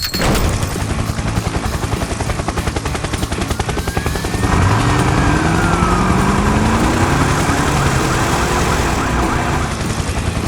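A fast mechanical chatter for about four seconds, then an emergency-vehicle siren that rises and falls in pitch over an engine climbing in pitch.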